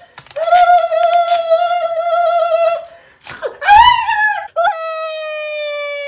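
A man's high-pitched, drawn-out screams: one long cry held at a steady pitch, a short rising yelp about three and a half seconds in, then another long cry that slowly falls in pitch.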